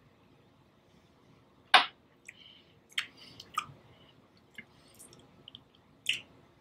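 Faint wet mouth sounds of whisky being held and worked around the mouth while tasting: small lip smacks and tongue clicks, with a sharper click nearly two seconds in.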